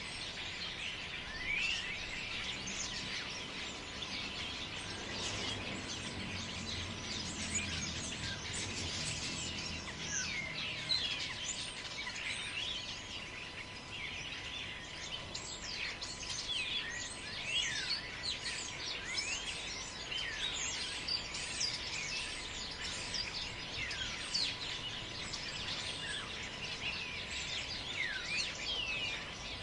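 Forest ambience: many small birds chirping and calling without pause over a steady background hiss. A low rumble swells and fades between about five and ten seconds in.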